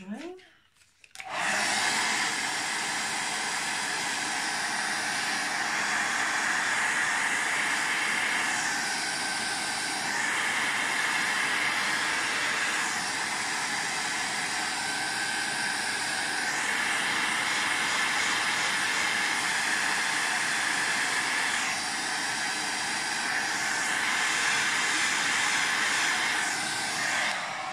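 Handheld hot-air dryer switched on about a second in, blowing steadily with its hiss swelling and dipping now and then, then switched off just before the end.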